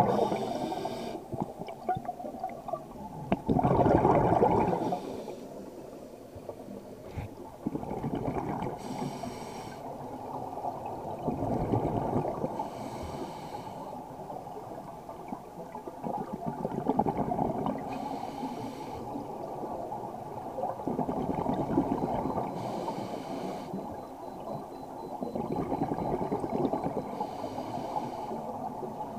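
Scuba breathing through a regulator underwater: a short hissing inhale every few seconds, each followed by a long burbling rush of exhaled bubbles. The loudest bubble rush comes about four seconds in.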